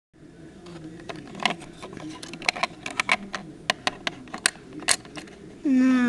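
Hard plastic toy pieces clicking and tapping irregularly as they are handled, over faint background voices. Near the end comes a short, loud held vocal note that dips in pitch as it ends.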